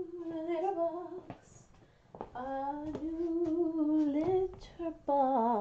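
A woman humming a wordless tune in long held notes, three phrases, the last one wavering and dropping in pitch near the end.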